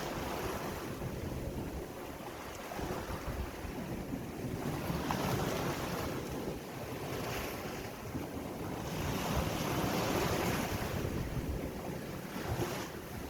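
Sea waves breaking in a steady wash of surf, swelling louder several times, with wind buffeting the microphone.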